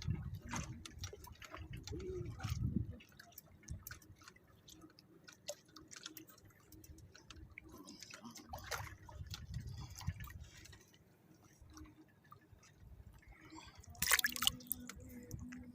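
Water dripping and splashing, with scattered small knocks and patches of low rumble. A short, loud rush of noise comes about fourteen seconds in.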